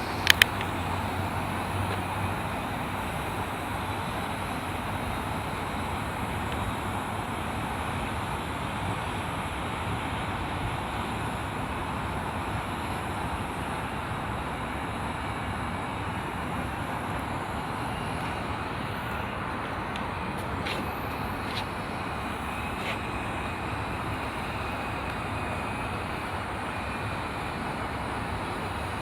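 Steady outdoor rushing noise, wind against the microphone blended with a low hum of distant traffic, on a windy day. A short electronic beep sounds right at the start.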